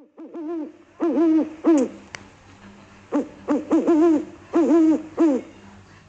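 Pigeon cooing: several runs of short, low coos, each note rising and falling in pitch, with a brief sharp click about two seconds in.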